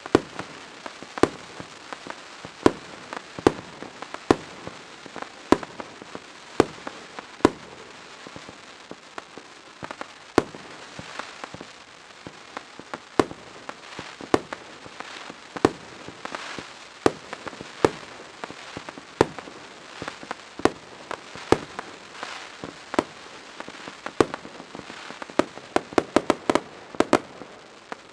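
Fireworks display: sharp bangs of bursting fireworks, roughly one every second, over a steady hiss. A quick run of about eight bangs comes near the end.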